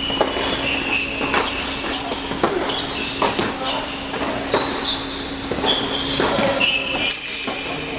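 Indoor tennis rally: racquets striking the ball and the ball bouncing on the hard court, in an irregular run of knocks, with sneakers squeaking sharply on the court surface. A steady hum runs underneath.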